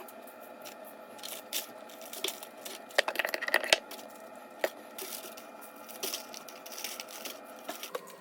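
Kitchen handling noises while breading chicken drumsticks: scattered clicks and clinks, with a cluster about three seconds in, and light crinkling, over a steady hum.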